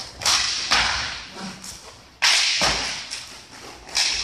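Sharp cracks of roller hockey sticks and puck hitting each other and the rink boards, about four in quick succession. Each one is loud and sudden and rings on in the echo of a large hall.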